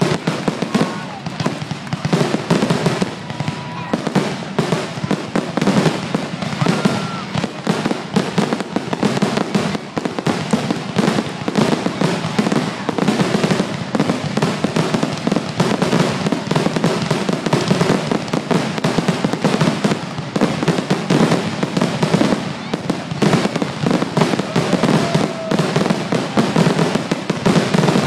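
A continuous barrage of aerial fireworks: bangs and crackling bursts follow one another densely with no pauses, and a few short, faint whistles come through.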